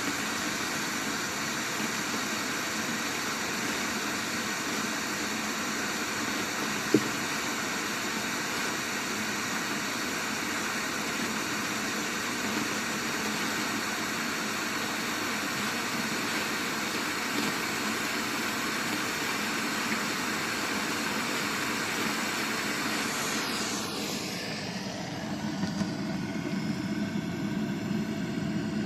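Steady rushing noise with faint steady hum tones, picked up by a microphone 18 m down a cased borehole. About 24 seconds in there is a brief falling sweep, and a lower hum comes up. Its cause is disputed: the recordists take it for tunnelling, while the Ministry of National Defense calls it wind.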